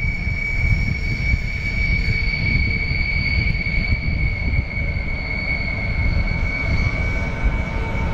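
Rhaetian Railway Ge 4/4 III electric locomotive hauling a passenger train on approach: a low rumble with a steady high-pitched squeal over it that fades out about seven seconds in.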